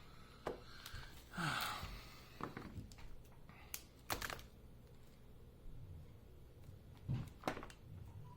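Scattered sharp clicks and taps of small tools and parts being handled at a phone-repair bench, with a brief rustle about a second and a half in, over a faint steady low hum.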